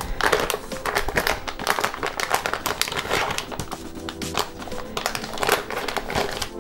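Resealable antistatic plastic bag crinkling as hands open it and handle the cable inside: an irregular run of crackles and rustles, over steady background music.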